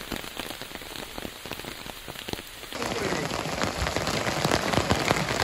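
Heavy monsoon rain falling, with many separate drop hits on wet ground and water. About halfway through it grows louder, with rainwater streaming off a roof edge.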